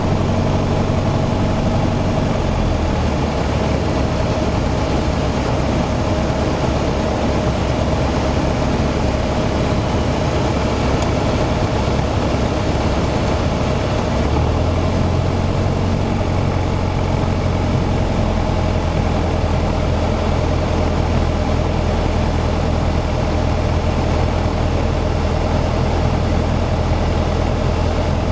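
Piper PA-28-181's four-cylinder Lycoming piston engine and propeller running steadily, heard from inside the cabin on approach. The engine note changes about two and a half seconds in and again about halfway through.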